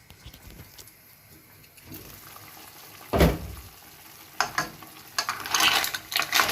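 Clams and mussels cooking in a pan: bubbling and sizzling, a heavy knock about three seconds in, then a run of loud clattering clicks from the shells and pan in the second half.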